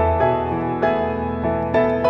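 Background music: a soft piano melody with a new note struck every few tenths of a second.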